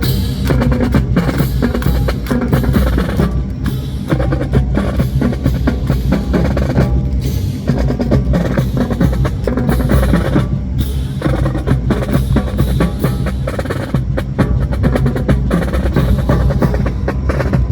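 Music with drums and percussion, full of sharp wood-block-like clicks.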